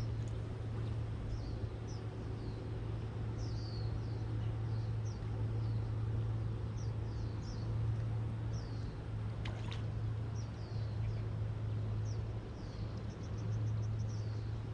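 Small birds chirping in short falling calls again and again, with a quick run of notes near the end, over a steady low hum. A single click sounds about two-thirds of the way through.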